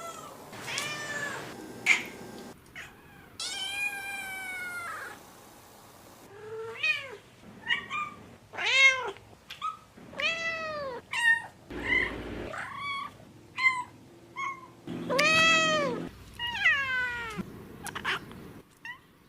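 A string of separate domestic cat meows, a dozen or more, most of them short arched calls. One long drawn-out meow comes at about 3.5 s and another at about 15 s, with abrupt cuts between clips.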